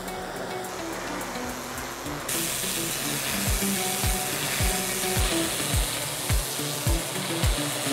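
Pressure washer jet hissing steadily as it blasts concrete paving slabs, getting brighter about two seconds in. Under it is background music, whose thumping beat of about two a second comes in about three seconds in.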